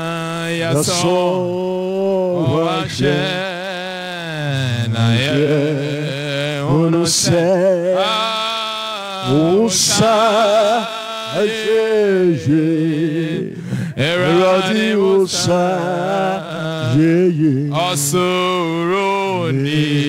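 A man singing a worship chant into a microphone, over the church's sound system, with long wavering notes that slide up and down.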